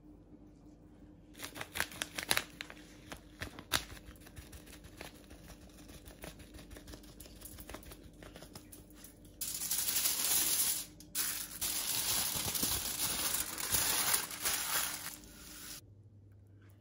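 A hand rubbing whole-grain mustard over raw veal, giving sticky clicks and squelches. About halfway through, aluminium foil crinkles loudly for several seconds, with one short break, as it is folded around the meat. The crinkling stops abruptly near the end.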